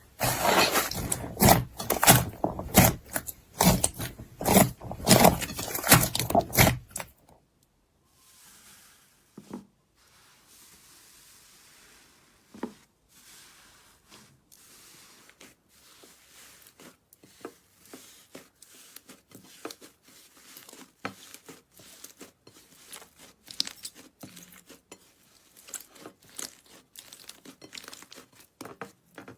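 Slime being squeezed and worked by hand, with dense crackling and popping for about the first seven seconds. It then drops suddenly to much quieter, scattered soft pops and clicks.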